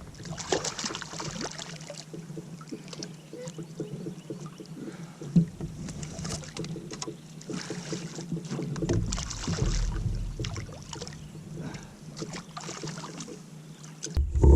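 Water splashing and sloshing around a kayak, with scattered knocks and rattles, as a hooked smallmouth bass is fought and landed. One sharp knock comes about five seconds in.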